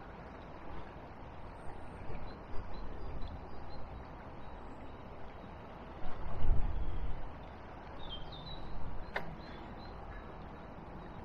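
Outdoor riverbank ambience: the steady rush of a river running high after floods, broken by low rumbles, loudest about six seconds in. Small birds chirp faintly, mostly later on, and there is one sharp click just after nine seconds.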